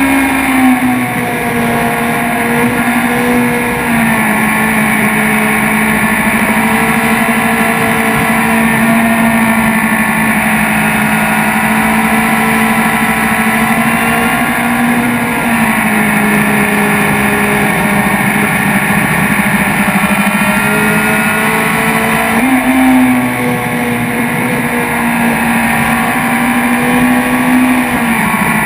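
BMW S1000RR's inline-four engine running hard at track speed, heard from an onboard camera. Its note holds steady and jumps up or down in pitch in a few sudden steps.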